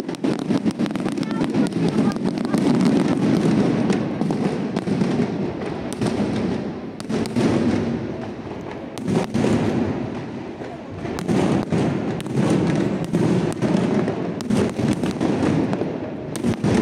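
Fireworks display: aerial shells bursting overhead in a rapid, unbroken series of bangs and crackles, heavier in two stretches.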